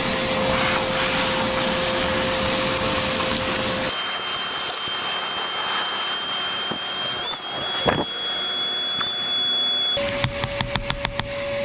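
Bauer 14-gallon 6 hp shop vacuum running with a loud steady whine as it sucks up debris; the pitch of the whine jumps abruptly to a high tone about four seconds in and drops back about ten seconds in. Near the end, a quick run of about six clicks.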